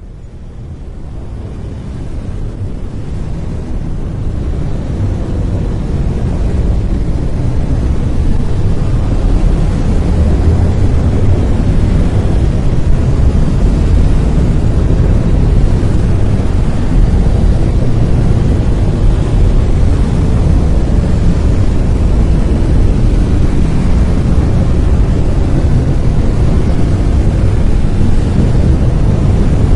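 Brown noise: a steady, deep rushing hiss weighted towards the low end, fading up over the first several seconds and then holding level.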